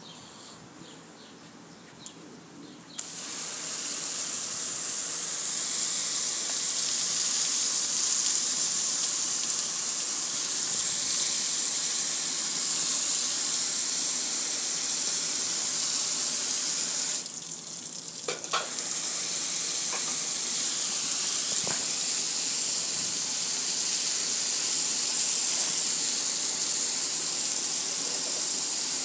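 Garden hose spray hitting a metal gas grill, a steady hiss with water splashing and running off the lid and panels. It starts suddenly about three seconds in, stops for a moment a little past halfway, then starts again.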